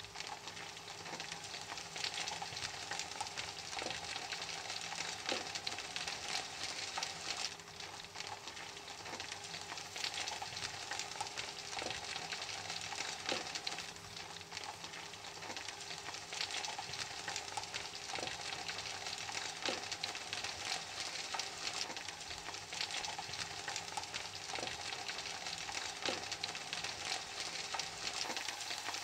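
Steady frying sizzle with fine crackling, like chicken nuggets frying in hot oil.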